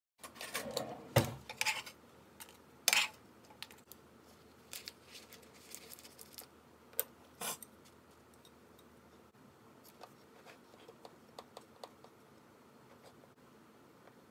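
Chopsticks and a metal spoon clicking and clattering against a metal bento box and a metal baking tray while food is packed: a few sharp knocks in the first few seconds, then lighter, scattered taps.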